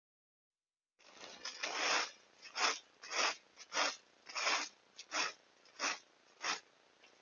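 Leaf rake scraping across leaf-strewn dirt in repeated pulls, about eight strokes at roughly one every two-thirds of a second, starting about a second in.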